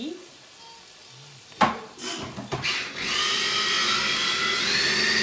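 A sharp knock about a second and a half in, then an electric blender's motor starts about three seconds in and runs with a steady whine, puréeing boiled pumpkin; its pitch steps up near the end.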